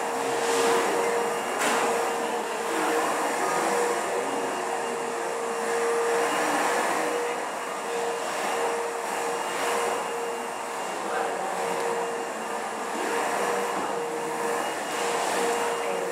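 Steady rushing background noise of a meeting room with a constant mid-pitched hum, and a faint click about two seconds in.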